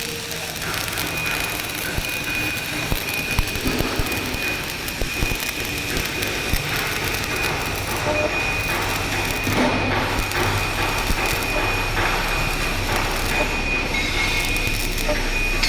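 Steady machinery noise with a thin, constant high whine, a low hum underneath and scattered knocks and clicks.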